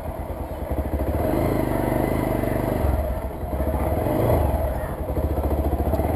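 Motorcycle engine running at low speed as the bike rolls over a dirt slope, the throttle opening about a second in and again around four seconds in.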